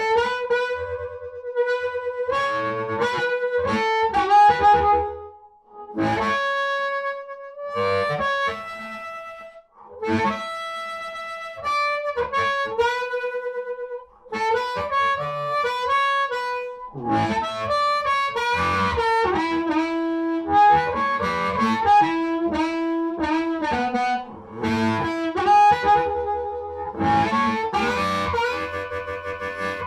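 Harmonica played through an Arne Jr 35-watt amplifier into a 10-inch Weber Vintage Series speaker, a speaker made for early breakup, in an old Bell and Howell cabinet. It plays phrases of held notes and quick runs, with a few short pauses between phrases.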